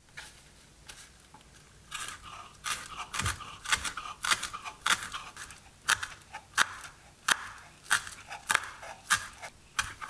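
Chef's knife chopping fresh chives on a wooden cutting board: a steady run of crisp blade strikes through the stalks onto the wood, about two to three a second, starting about two seconds in.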